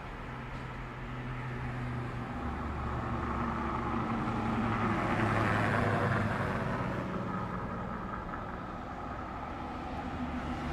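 Car traffic on a street passing by: engine hum and tyre noise swell to their loudest about halfway through as a car goes past, then fade again.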